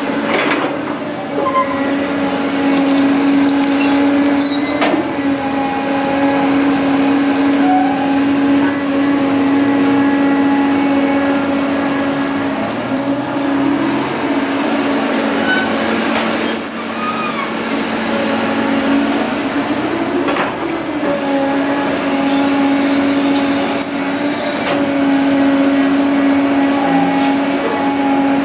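Heavy diesel machinery running with a steady engine drone, the pitch rising and falling briefly twice, with a few sharp knocks.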